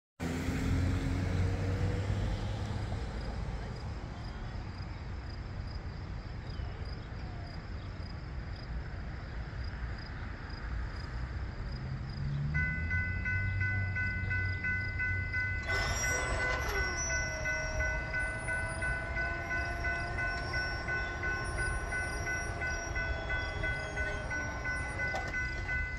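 Low diesel rumble of approaching locomotives. About halfway through, a grade-crossing warning bell starts ringing steadily. A few seconds later a clunk and a wavering whine join it as the crossing gate comes down, the whine stopping near the end.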